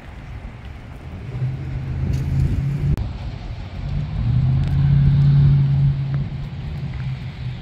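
A road vehicle's engine running close by, a low steady hum that grows louder through the middle and eases off near the end, with a brief break about three seconds in.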